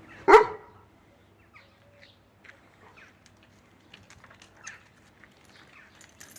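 One loud, short animal call near the start, falling in pitch, followed by scattered faint bird chirps and clicks.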